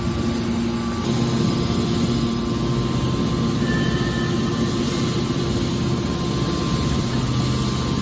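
Horizontal hydraulic metal baler running, a steady machine hum with a few low, even tones that holds without a break.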